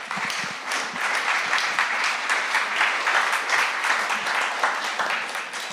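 Audience applauding, a dense patter of many hands clapping at once, tapering off near the end.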